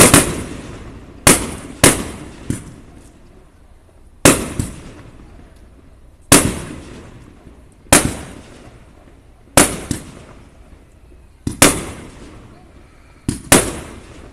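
Aerial firework shells bursting overhead: about a dozen sharp bangs, one every one to two seconds, some in quick pairs, each trailing off in a rolling echo.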